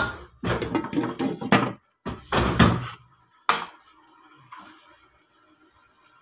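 Clatter of cooking in a wok of frying chicken livers, then a single clink as a glass lid goes on about three and a half seconds in. After that a faint, steady sizzle continues under the lid.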